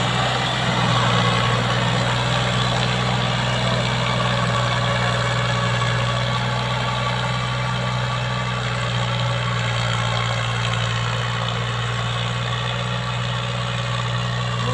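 New Holland TT55 tractor's diesel engine running steadily under load as it drives a PTO rotavator tilling the soil, with a deep, even hum. It fades a little as the tractor moves away.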